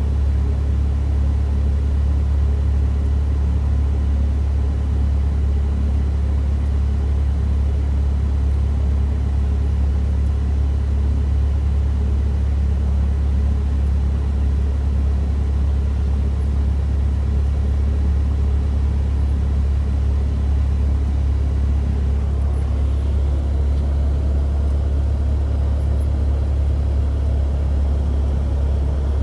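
Cessna 172 Skyhawk's piston engine and propeller running at low taxi power, a steady, even drone heard from inside the cabin.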